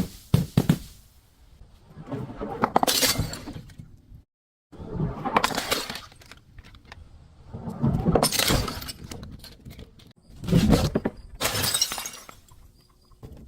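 Glass being smashed and crunched, in about six separate bouts of crackling and shattering, each lasting about a second, with a brief dead gap a little after four seconds in.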